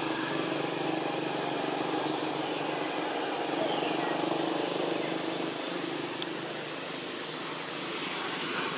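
Steady hum of a motor vehicle engine running, under an even background hiss.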